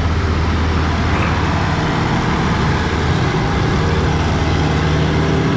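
Large diesel tractor engine running steadily, a loud low drone.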